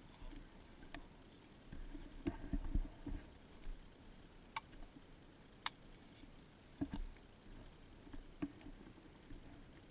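Footsteps and gear knocking of a player moving through grass and brush, muffled by a sealed waterproof camera housing. Irregular dull thumps come in a cluster in the first few seconds, and two sharp clicks fall near the middle.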